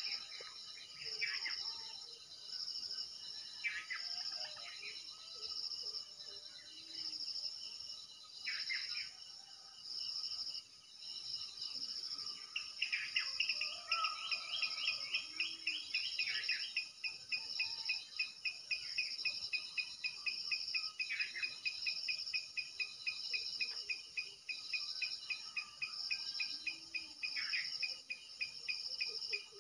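Crickets chirping in high, regular pulses about once a second. About twelve seconds in, a second, faster and lower-pitched insect trill joins and keeps going.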